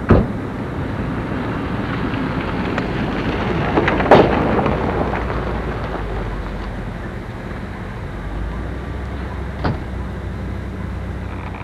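Wind buffeting a camcorder microphone: a steady rush heaviest in the low end, with a few sharp knocks, just after the start, about four seconds in (the loudest) and near the end.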